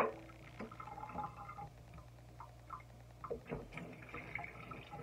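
Faint water and small knocks and clicks from a mushroom and debris being handled in a kitchen sink, with one louder knock about three and a half seconds in.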